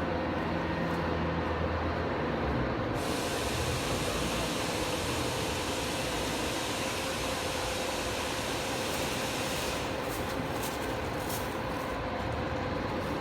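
Cummins diesel generator set running steadily, with a constant hum over the engine noise. A high hiss joins in about three seconds in and fades out around ten seconds.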